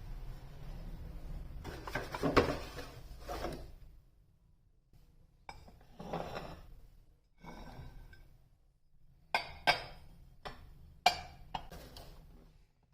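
Kitchenware being handled: a clatter in the first few seconds, loudest about two and a half seconds in, then scattered handling sounds and several sharp clinks of dishes and utensils near the end.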